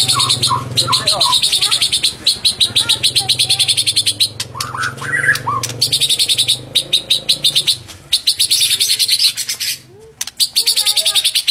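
White-rumped shama singing: a fast, high trill of rapidly repeated notes broken by short pauses, with a few lower whistled notes about five seconds in.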